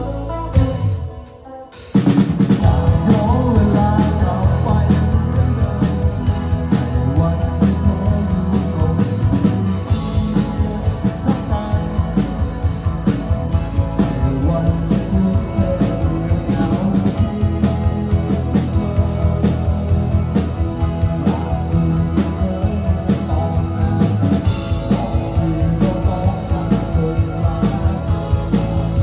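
Live indie rock band playing electric guitars, electric bass and drum kit. The band stops briefly about a second in, then comes back in full at about two seconds with steady, driving drums.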